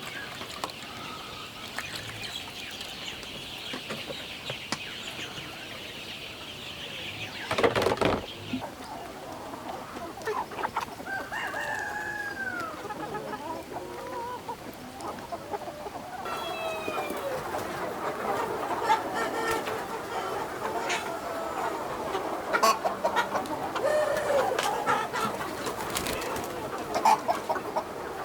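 A large flock of free-range native chickens clucking and calling, the calls growing thicker from about halfway through. A steady high hiss fills the first eight seconds and stops after one loud burst of noise.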